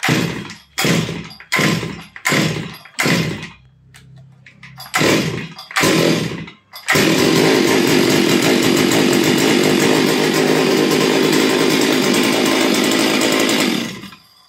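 A new Stihl MS 382 two-stroke chainsaw being pull-started: about seven short bursts come as the starter cord is pulled. About seven seconds in it catches and runs steadily, then cuts off suddenly near the end.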